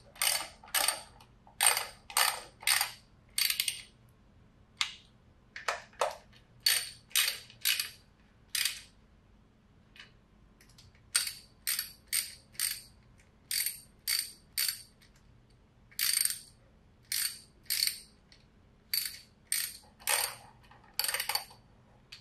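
Hand ratchet clicking in quick back-and-forth strokes, about two to three a second, in several runs with short pauses, as the valve cover's acorn nuts are snugged down.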